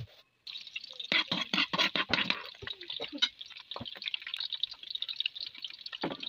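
Chopped onions sizzling in hot oil in a metal wok, starting about half a second in, with a metal spoon knocking and scraping against the pan.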